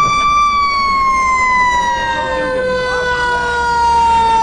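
Fire engine siren sounding one long held tone that rises slightly, then slides slowly down in pitch, over a low engine rumble.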